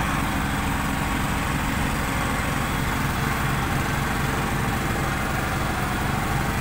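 Komatsu PC200-8MO excavator's six-cylinder diesel engine idling steadily.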